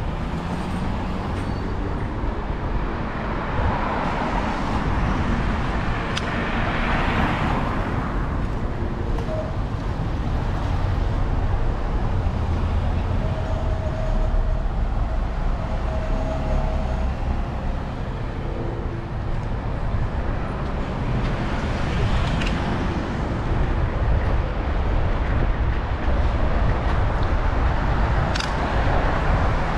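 City street traffic heard from a moving bicycle: cars driving and passing close by over a steady low rumble of road noise, swelling as vehicles pass a few seconds in and again in the last third.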